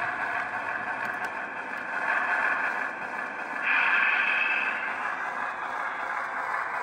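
Model train with two Centipede diesel locomotives hauling a long 25-car train up a grade and around a curve: a steady rolling noise of wheels on the track, louder about two seconds in and again around four seconds.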